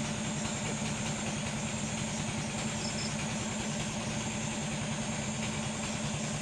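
Steady low engine hum, with a thin high whine above it.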